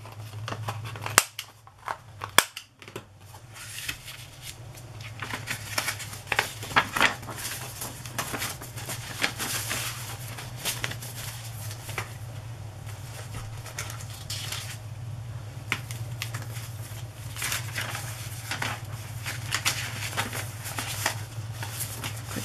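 Paper and card being handled and shuffled: rustling, with sharp clicks and taps, strongest in the first few seconds, over a steady low hum.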